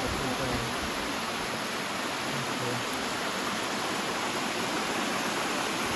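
Steady rush of flowing and falling stream water.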